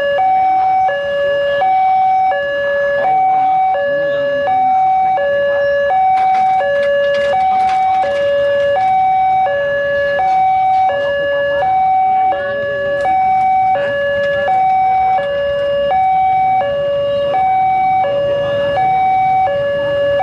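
Level-crossing warning alarm sounding from the horn loudspeaker on the crossing post: an electronic two-tone signal, alternating evenly between a lower and a higher note about once a second. It signals that a train is approaching and the barriers are down.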